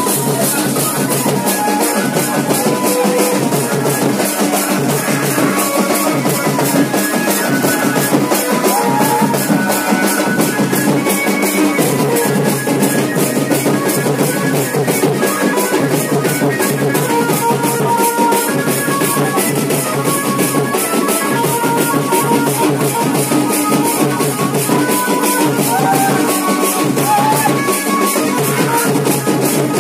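Loud dance music with a steady, driving drum beat that runs without a break.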